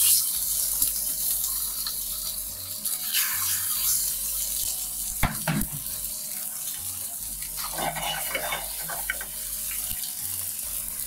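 Kinmedai (golden-eye snapper) fillets searing in hot olive oil with garlic in a steel frying pan over a gas burner, a steady high hiss of sizzling as the skin side browns. A single sharp knock sounds about five seconds in.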